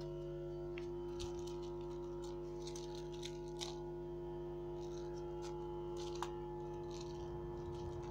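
A steady low hum, with faint scattered scratches and taps from kittens' paws and claws scuffling on the floor as they play.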